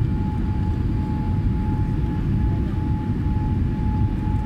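Cabin noise inside a Boeing 787 climbing after takeoff: a steady low rumble of the engines and airflow, with a faint steady whine.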